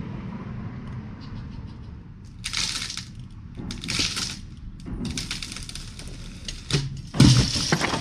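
Sycamore spar's hinge wood cracking and splitting in several bursts as the trunk tips over, then the trunk hitting the ground with a heavy thud near the end, the loudest sound.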